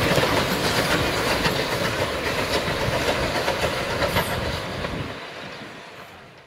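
Small steam tank locomotive and its old wooden carriages rolling past, wheels clicking over the rail joints, the sound fading away near the end.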